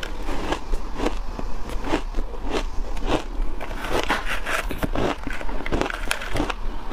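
Shaved ice crunching as it is chewed, close to a lapel microphone: a rapid, irregular run of crisp crunches.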